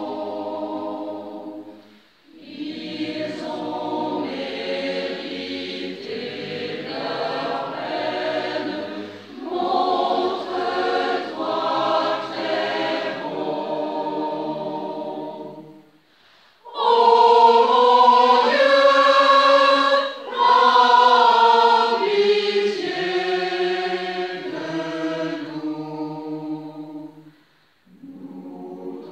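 Women's choir singing a sacred prayer setting in long phrases, breaking off briefly about two seconds in, again a little past the middle, and near the end. The loudest phrase comes just after the middle break.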